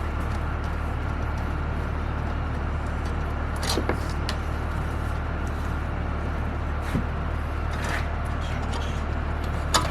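Steady low mechanical hum, like an engine running, with a few scattered clicks and light metallic knocks from handling the refrigerator's burner access cover and its fasteners.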